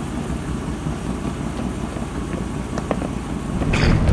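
Steady low engine rumble of an idling vehicle, with a brief hiss just before the end.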